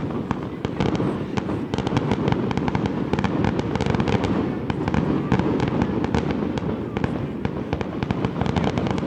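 Fireworks display: a dense, unbroken barrage of rapid bangs and crackles over a continuous rumble.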